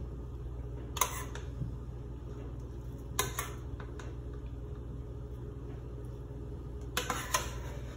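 Slotted spatula scraping and knocking against a metal stockpot as spent mash grain is scooped out, with short clanks about a second in, twice around three seconds in, and a cluster near the end, over a steady low hum.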